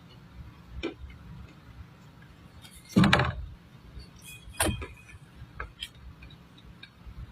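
Dry clay crunching in a few sharp crackling snaps. The loudest and longest comes about three seconds in, with smaller ones near one second and just under five seconds, and a few faint ticks between.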